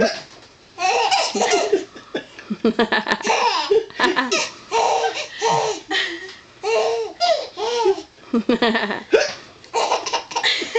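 A baby laughing in repeated bursts, with hiccup sounds among the laughs.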